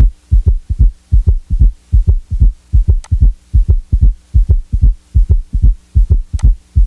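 Recorded human heart sounds, as heard through a stethoscope: a regular run of low lub-dub thumps about every half second, over a faint steady hum, with a couple of sharp clicks.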